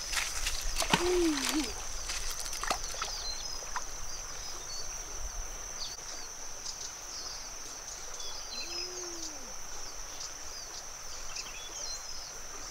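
Natural riverside ambience: a steady high-pitched drone with scattered bird chirps over it. A low call that rises and falls sounds twice, about a second in and again past the middle, and a few short clicks come in the first few seconds.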